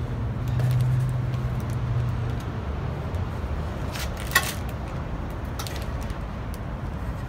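Light metal clinks and taps as greenhouse-kit frame tubes are handled and pushed into their connectors, the sharpest clink about four seconds in. A low steady hum underneath fades out about two seconds in.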